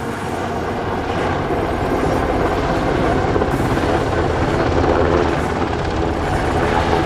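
Sikorsky CH-148 Cyclone military helicopter flying a low display pass, its four-blade main rotor beating steadily over the noise of its twin turboshaft engines. It grows louder over the first couple of seconds as it comes closer.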